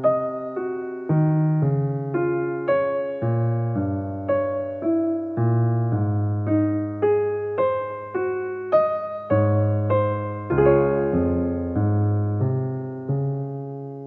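Piano music: a simple melody of single struck notes about two a second over low bass notes, ending on a chord left to ring and fade near the end.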